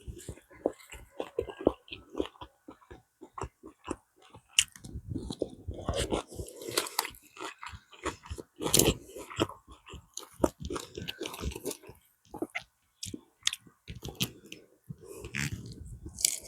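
A person chewing crunchy food close to the microphone: many irregular crisp crunches and bites with wet mouth sounds between them.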